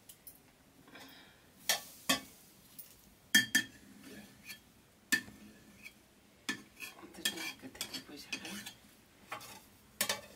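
Metal ladle and lids clinking and scraping against metal cooking pots: a scattering of sharp clinks, some ringing briefly, with softer stirring and scraping in between.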